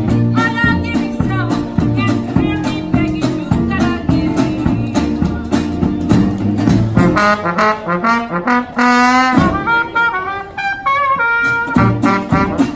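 Traditional jazz street band playing, with trombone, trumpet and clarinet over a sousaphone bass line and a strummed guitar. About seven seconds in, the bass and rhythm drop away, leaving the horns playing on their own; the full band comes back in near the end.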